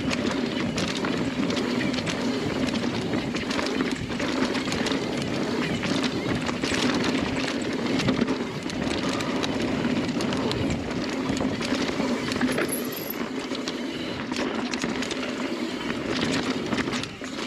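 Mountain bike riding fast down a dirt singletrack trail: a steady rush of tyres rolling over dirt and rocks, with frequent rattles and clicks from the bike over the rough ground.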